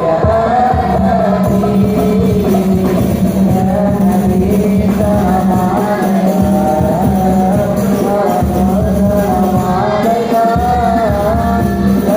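A child's voice singing a devotional song in praise of the Prophet (sholawat), a melodic line over music with a steady low drone and a beat.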